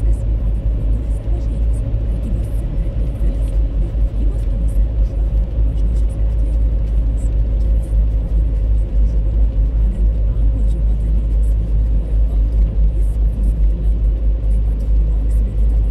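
Car driving steadily on an asphalt road, heard from inside the cabin: a continuous low rumble of tyres and engine with a steady hum.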